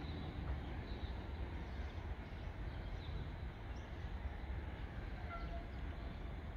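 Outdoor background: a steady low rumble with faint bird chirps.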